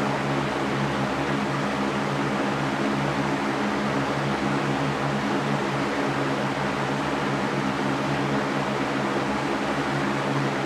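Electric fan running at a steady speed: an even whooshing of moving air over a low, constant motor hum.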